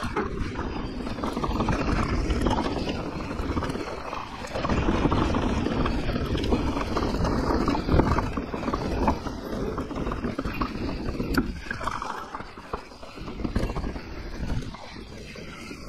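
Santa Cruz Nomad mountain bike riding down a rough, rocky trail: tyre noise and the bike rattling over stones, with uneven swells and scattered knocks. Wind rumbles on the microphone.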